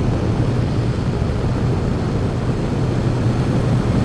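Yamaha GTS 1000's inline-four engine running at a steady part throttle, just under 4,000 rpm, on the move, with a steady rush of wind and road noise over the helmet-mounted microphone.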